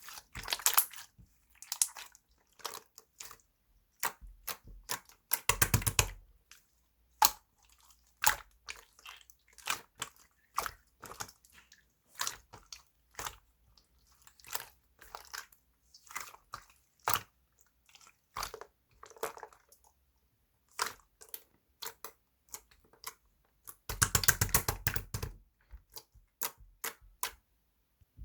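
Close-up crunching and crackling: many short sharp clicks, with two denser bursts of rapid crackles, one about five seconds in and one near the end.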